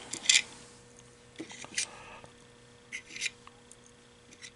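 Small parts of an MEI bill validator's transport assembly being taken apart by hand: a handful of short, separate clicks and light scrapes, over a faint steady hum.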